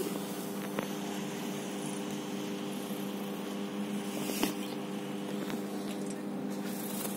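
Steady machine hum made of several steady tones, with a few light clicks, the clearest about four and a half seconds in.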